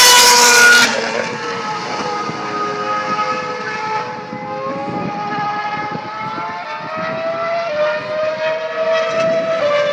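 2012 Formula 1 car's 2.4-litre V8 passing close by at high revs for about the first second, then cut off sharply to a more distant engine note. The note climbs in pitch as the car accelerates through the gears and drops back on the shifts.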